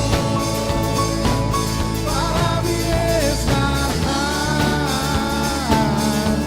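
Worship band music in a rock style, with drum kit and guitar under a wavering sung melody line.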